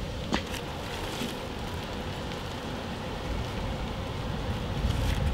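Outdoor ambience: a steady low rumble with a light rustle of a paper bag being handled, and one sharp click about a third of a second in.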